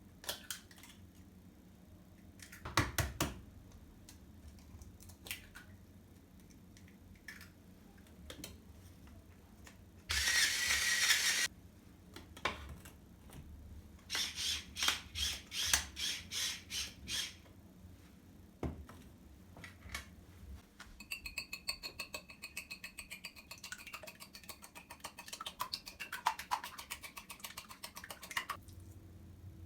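Household handling sounds. A few sharp knocks are followed by a short hiss-like rush of noise, then a run of about eight quick strokes. Near the end comes a long stretch of rapid clicking with a faint whine.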